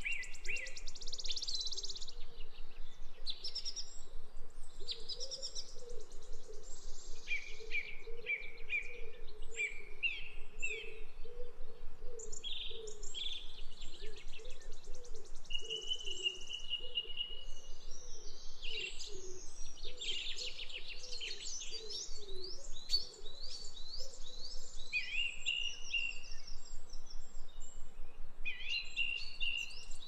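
Small songbirds chirping and calling, with quick overlapping chirps and trills, short gaps between them, and one steady held trill about halfway through.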